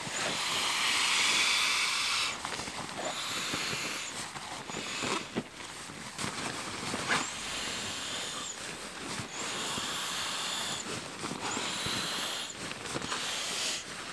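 An inflatable sleeping pad being inflated: repeated rushes of air hissing into the valve, each a second or two long with short pauses between. Light rustles and clicks on the forest floor come in between.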